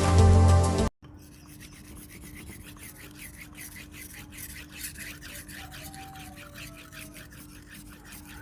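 Intro music cuts off abruptly about a second in, followed by a knife blade being stroked back and forth on a soaked natural Payakumbuh whetstone of about 1000 grit, a steady scraping at roughly two strokes a second.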